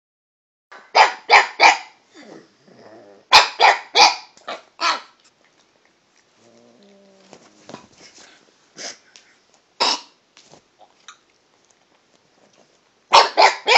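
Pug barking in quick groups of three to five short, sharp barks, with single barks in between and quieter, lower pitched grumbling noises in the gaps, its voice shifting pitch from bark to bark as it barks at a cat.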